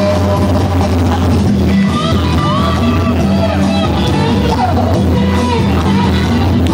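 Man singing live into a handheld microphone over amplified band music with keyboard, loud and continuous.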